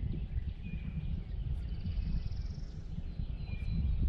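Low, unsteady outdoor rumble on the microphone, with birds singing a few short whistled notes over it.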